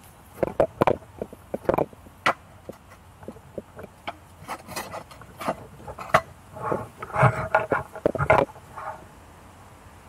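Close handling noise: irregular knocks, clicks and scrapes as someone works a narrowboat's mooring line right beside the microphone, busier in the second half, with the camera itself being moved near the end.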